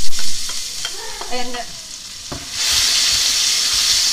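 Chopped onions sizzling in hot frying oil in a pan, stirred with a wooden spatula. A couple of knocks come at the start, and about two and a half seconds in the sizzle turns into a loud, steady hiss.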